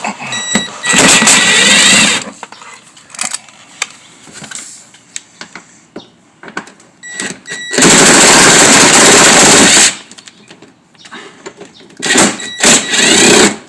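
Power driver spinning out 10mm bolts from the headlight mounting in three loud bursts of one to two seconds each, with small clicks of handling between them.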